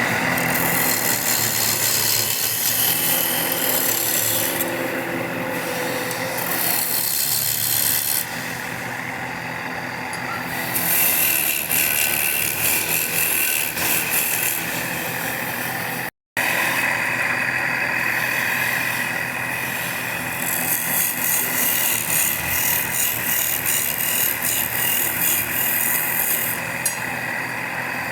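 Woodworking power tool cutting and shaping wood: a motor runs steadily under the noise of the cut. The sound breaks off for an instant about sixteen seconds in, then goes on with a somewhat different texture.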